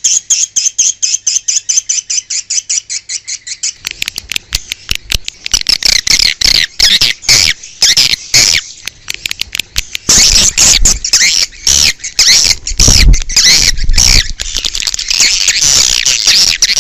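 Swiftlet calls of the kind played to lure edible-nest swiftlets: rapid, repeated high chirps and twitters, many a second. The calls are sparser for the first few seconds, then swell into a dense chorus of overlapping twittering.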